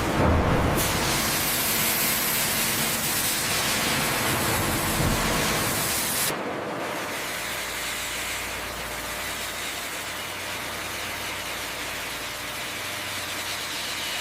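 Steady machinery noise with a strong hiss. About six seconds in it drops a little in level and becomes duller, then runs on evenly.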